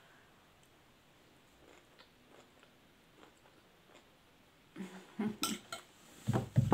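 Eating sounds: a spoon on a plate and chewing on a mouthful of rice. Faint at first, then a cluster of louder clicks and mouth sounds over the last two seconds or so.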